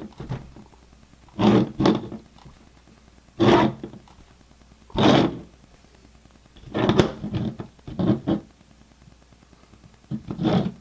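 Clear acrylic Raspberry Pi case being handled and turned over on a tabletop: a series of short plastic knocks and scrapes every second or two.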